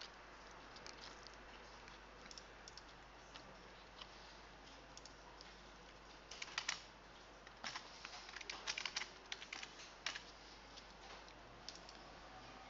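Faint typing on a computer keyboard: scattered key clicks, with a busier run of keystrokes past the middle.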